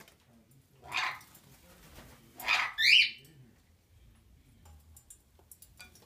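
Pet parrot squawking: one harsh squawk about a second in, then two more in quick succession about a second and a half later, the last one higher and bending up and down in pitch.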